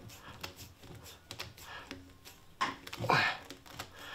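Clear vinyl hose being forced onto a plastic hose fitting by hand: rubbing, squeaking and small clicks of the tubing and fitting. The loudest stretch comes about three seconds in.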